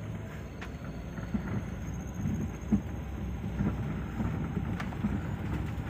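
Car cabin noise while driving over a rutted dirt track: a steady low rumble of the engine and tyres with scattered knocks and thuds as the car bumps along. The sharpest knock comes a little under halfway through.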